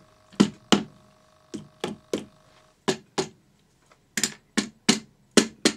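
Rubber mallet tapping the Yamaha XT600's right-hand engine case cover to break it free for removal: about a dozen sharp knocks, mostly in quick pairs.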